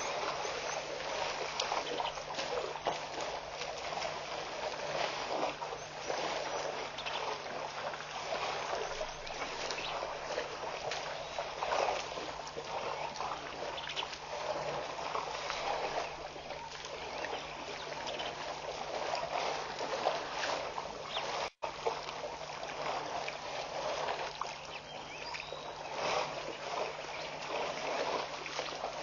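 Water splashing and trickling as a herd of African elephants drinks with their trunks at the water's edge, over a steady low hum. The sound cuts out for an instant about two-thirds of the way through.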